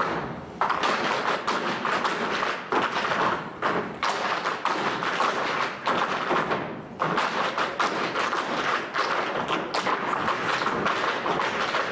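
A group of tap dancers' metal-plated shoes striking the stage floor in unison: fast, dense rhythmic taps and stamps with no music, broken by a few brief pauses.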